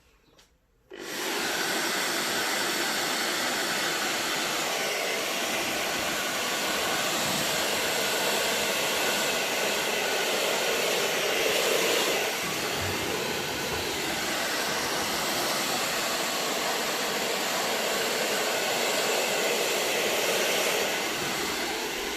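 Hair dryer switched on about a second in, then running steadily at full blow.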